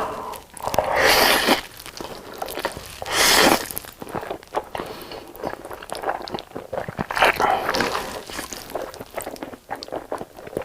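Close-miked eating: crunchy bites and chewing with many small mouth clicks and three louder crunches.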